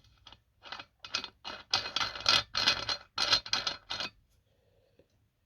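A washer and nut being fitted by hand onto a threaded stud: a quick, irregular run of short metallic scrapes and clicks that stops about four seconds in.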